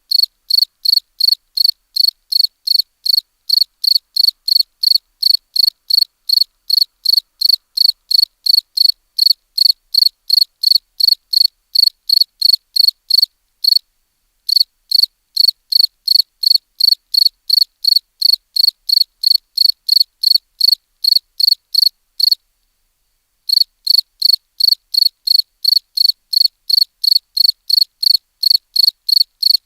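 A cricket chirping in a steady, even rhythm of about two and a half high-pitched chirps a second. The chirping breaks off briefly about halfway through and again for about a second some two-thirds of the way in.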